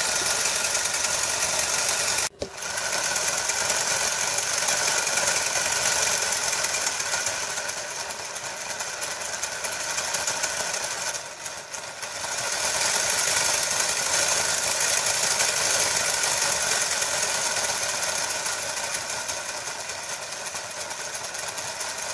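Old Hornby model locomotive's DC electric motor and gear train running on the bench, a steady whirr; about two seconds in it cuts out for an instant and starts again, and around eleven seconds it slows and goes quieter before speeding back up as the speed knob is turned.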